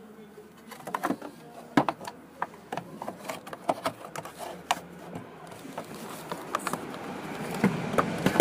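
A run of irregular clicks and knocks, with a faint hiss growing louder near the end.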